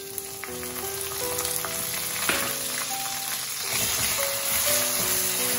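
Onion, ginger and garlic paste sizzling in hot mustard oil in a kadhai as it is stirred with a spatula; the sizzle grows louder about two-thirds of the way in. Soft background music with held notes plays over it.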